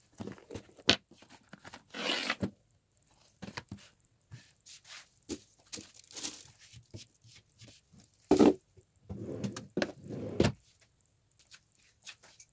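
Things being handled and put down on a desk: scattered knocks, clicks and scrapes, with rustling bursts about 2 seconds in and again from about 8 to 10 seconds in.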